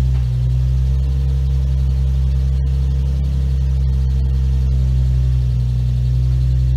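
Nissan 350Z's 3.5-litre V6 idling steadily, settling into idle moments after starting up.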